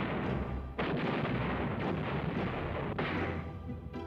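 Artillery fire from towed field howitzers: a continuous run of heavy blasts, with a fresh shot about a second in and another near three seconds, each dying away. Music plays underneath.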